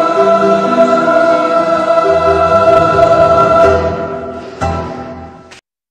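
Background music: a song with choir-like singing holds its closing chord, fades out from about four seconds in, and ends in a brief silence near the end.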